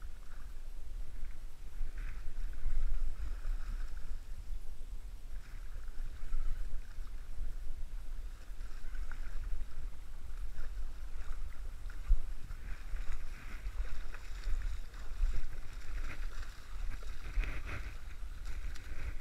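A hooked fish splashing and thrashing at the water's surface as it is played and brought in to the shallows, the splashing busier in the second half with a louder splash near the end. A steady low wind rumble on the microphone runs underneath.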